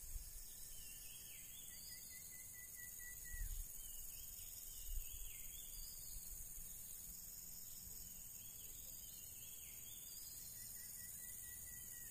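Steady high insect drone, with a bird's short arching chirps and trills repeating over it. There are two dull low thumps, about three and a half and five seconds in.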